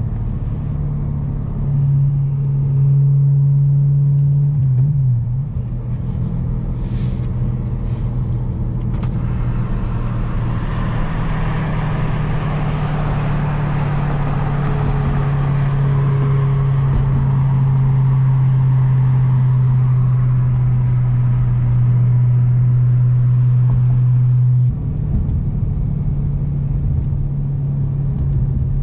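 The 4.0-litre S65 V8 of a muffler-deleted BMW E92 M3, heard from inside the cabin as a steady low drone at a cruise. A broader rushing noise swells through the middle and fades, and the level steps down slightly about 25 seconds in.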